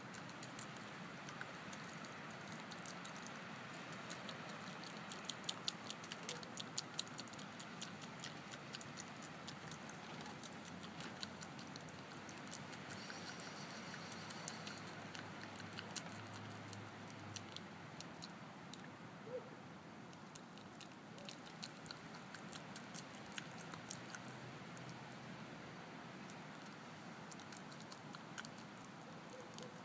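Groundhog chewing soft banana: a steady run of quick wet smacking clicks, thickest in the first half and sparser later on.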